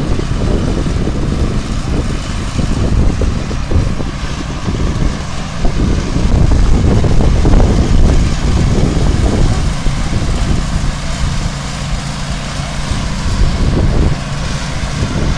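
Semi truck and belt conveyor machinery running steadily while a belt trailer unloads gypsum onto a conveyor feeding a rail hopper car. The low rumble swells from about six to nine seconds in.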